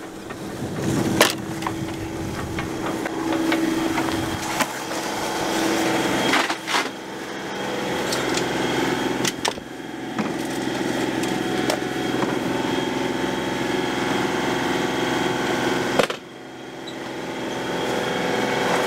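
A boat's engine running steadily, heard from the cabin below deck. A few knocks and clatters come through it, at about one second in, twice in the middle and near the end.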